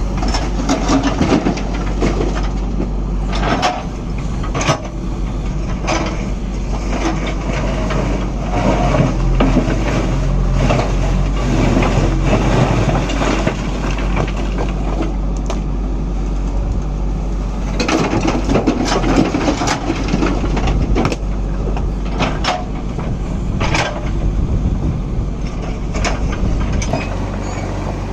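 JCB backhoe loader's diesel engine running steadily, with loose stone clattering and knocking into a tipper lorry in repeated bursts and a longer clatter about two-thirds of the way through.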